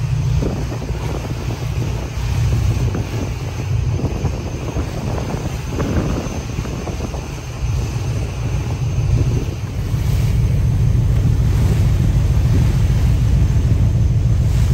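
Wind buffeting the microphone over a choppy open sea, with waves sloshing and splashing. The rumble grows louder about ten seconds in.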